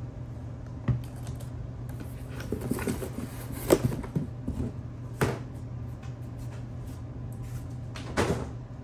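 Packaging and a plastic-wrapped air compressor being handled and set down on a table: scattered knocks, thuds and rustles of plastic and cardboard, the loudest about four seconds in, over a steady low hum.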